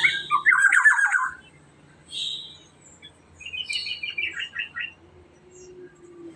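Black-naped oriole (kepodang emas) calling: a loud run of warbled notes at the start, a short higher note about two seconds in, then a quick series of higher notes around the middle.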